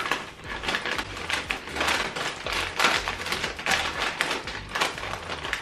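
Several people crunching and chewing crisp pea crackers: a dense, irregular run of crackly crunches.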